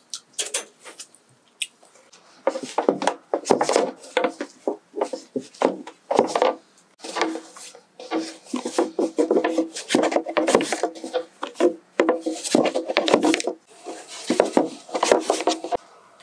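Long thin wooden rolling pin rolled back and forth over a thin sheet of dough on a wooden board: repeated wooden rolling and rubbing strokes, with a few light clicks in the first two seconds before the strokes begin.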